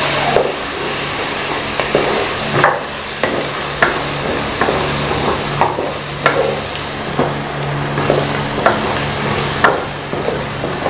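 Onions and ginger-garlic paste sizzling in hot oil in a metal pan while a spatula stirs them, scraping and tapping against the pan about once a second. A low steady hum runs underneath.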